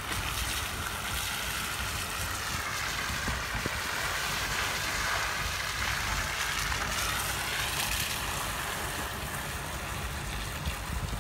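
Steady rushing noise of a car moving slowly along a wet, slushy street, tyre and road noise swelling a little in the middle, with a low rumble of wind on the microphone.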